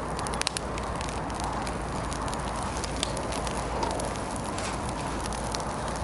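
Campfire of dry branches and wood chips burning, crackling with many small sharp pops, a couple of louder ones about half a second in.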